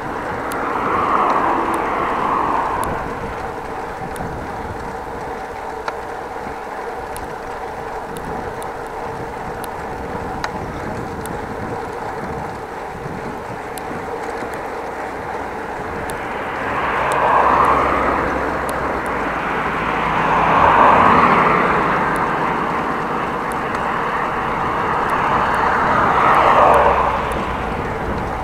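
Cars passing one at a time on the road alongside, each swelling up and fading over a couple of seconds: one about a second in, then three more in the last dozen seconds, over a steady hum.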